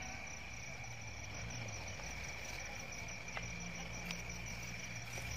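Crickets chirping steadily in a field at night, with a low hum underneath. Two faint clicks come about three and four seconds in.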